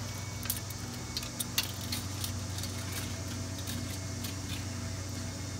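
Light clicks and taps of a modular plastic conveyor belt and its parts being handled, with a few sharper clicks in the first two and a half seconds, over a steady low hum.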